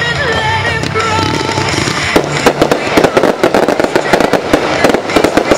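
Fireworks set to music: a sung pop tune plays for about two seconds, then a dense run of crackling and popping from bursting fireworks takes over, many cracks a second, with the music still underneath.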